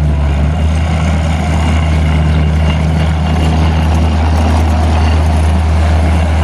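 Takeuchi TL130 tracked skid steer's diesel engine running at a steady speed, low and even, with no revving.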